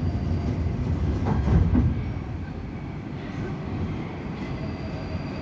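Low rumble of a metro train at a station platform, loudest in the first two seconds and then easing to a steadier, lower level.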